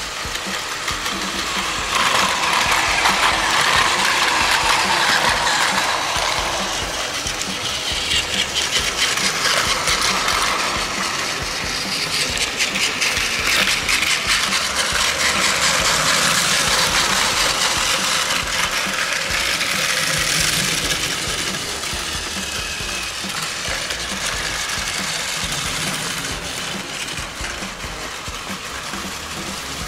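Battery-powered Plarail toy trains running on plastic track, their small electric motors and gears whirring with a rattle of wheels on the track. The sound swells and fades several times as the trains pass close.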